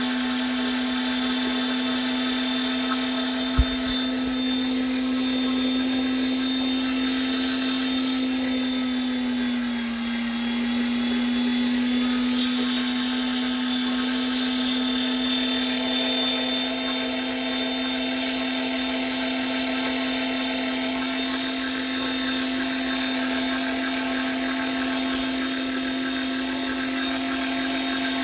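Electric meat grinder's motor running steadily with a constant hum while grinding New York steak; its pitch sags briefly about ten seconds in as it takes on load, then recovers. A single sharp click a few seconds in.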